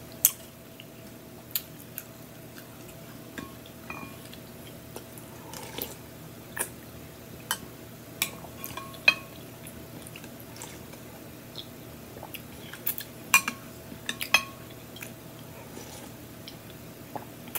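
Someone eating soup: a spoon clicks and scrapes against a glass bowl in scattered sharp taps, with sipping and chewing between them.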